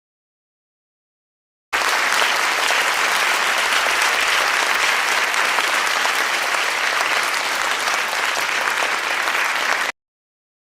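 Crowd applause, starting suddenly about two seconds in and cut off abruptly near the end: an applause clip edited in.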